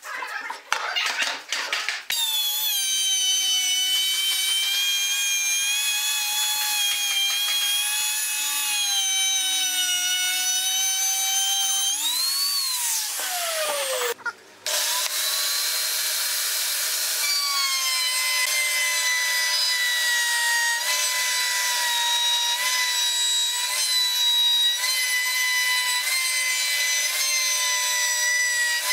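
Electric woodworking power tool running at high speed and cutting wood, a steady high whine with a rasping edge. Midway it sweeps in pitch and winds down, breaks off briefly, then runs on steadily at a slightly higher pitch.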